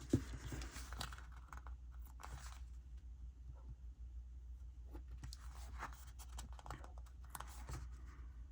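Faint rustling and peeling of small dot stickers being pulled off a sticker sheet, with small clicks and taps as they are handled on paper, over a low steady hum.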